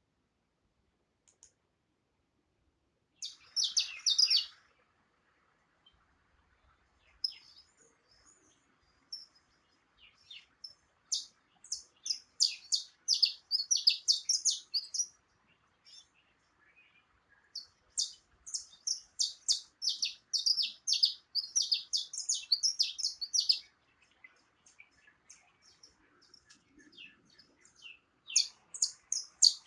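Small songbirds chirping and singing in bursts of rapid high notes, separated by pauses; near silence for the first three seconds.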